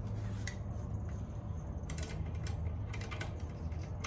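Hand tools clicking and clinking against metal as sockets are tried on a brake-assembly bolt: a scatter of short, sharp, irregular clicks over a steady low hum.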